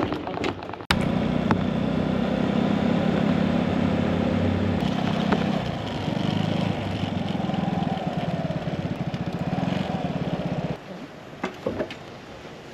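Vespa LX125 scooter engine running at a steady pitch. It cuts in abruptly about a second in and falls away near the end.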